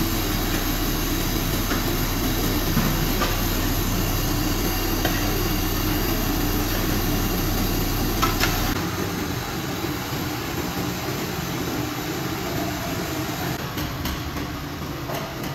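Large spatula scraping and knocking a few times against a big steel karahi as a mass of grated carrots is stirred, over a steady rumbling background noise.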